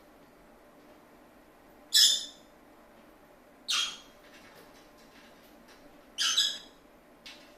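Pet lovebird giving three short, shrill squawks a couple of seconds apart, the first the loudest, then a faint fourth call near the end.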